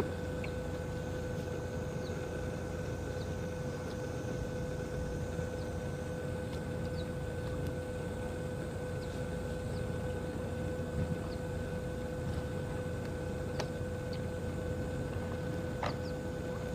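Steady drone of boat machinery in a harbour: a constant hum with a held tone over a low rumble, and a few faint short chirps and clicks.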